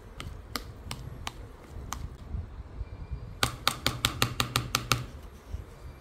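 Typing on a computer keyboard: a few scattered key presses, then a fast run of about a dozen keystrokes starting about three and a half seconds in.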